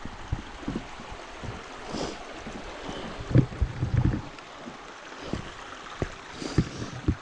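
Wind buffeting the microphone, with irregular low knocks and gusts over a steady rushing noise.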